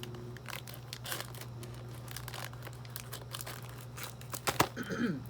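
Packaging of a Popin' Cookin' sushi candy kit crinkling and rustling as it is opened and cut, with irregular crackles and a louder burst of crinkling near the end.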